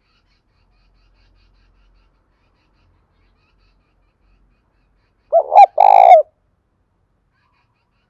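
Spotted dove cooing: a single short phrase about five seconds in, two quick notes and then a longer coo.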